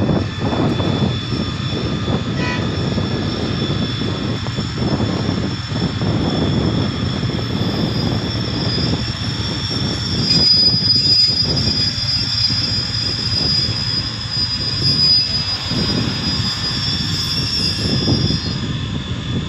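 SRT QSY-class diesel-electric locomotive 5210 running past at low speed as it pulls a passenger train into a station, followed by the coaches rolling along the track. A high, steady squeal comes in about halfway through and holds until near the end.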